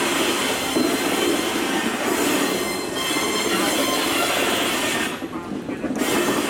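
Slow-moving train of red-and-yellow electric maintenance cars rolling past, its wheels rumbling steadily on the rails with faint squealing.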